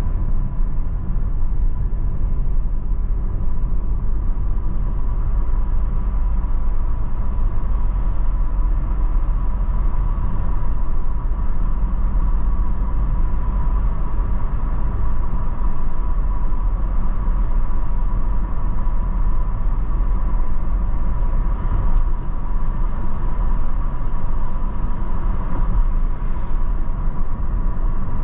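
Steady road and engine rumble of a car driving on a paved main road, heard from inside the car, with a thin steady whine above it.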